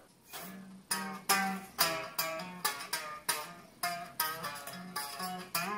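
Newly assembled Thomann CTS24 kit electric guitar (a PRS-style solid body with a humbucker) being picked in single notes, about two to three a second. Each note rings and fades.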